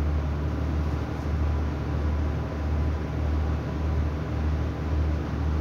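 Diesel engine of an Irish Rail 29000 Class railcar idling while the train stands at a platform, heard from inside the carriage: a low hum that throbs roughly every half second, with a faint steady high tone above it.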